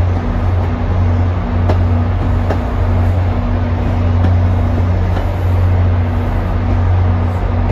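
Diesel locomotive engine running steadily, a deep constant hum with a few faint clicks.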